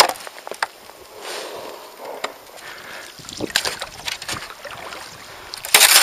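Kayak paddle pushing off the shallow, weedy bottom: scattered knocks and scrapes of the blade on the bottom with water swishing, and a louder splash near the end.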